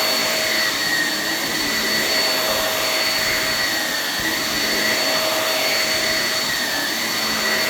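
Shark Navigator NV22L upright vacuum running steadily with its brush roll on: an even rush of suction with a steady whine on top.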